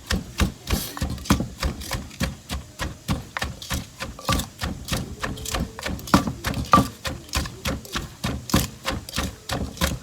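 Pestle pounding in a mortar to mix papaya salad, a steady run of dull knocks at about three to four strokes a second.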